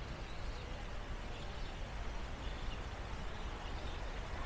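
Outdoor park ambience: a steady low rumble under an even background hiss, with faint bird chirps here and there.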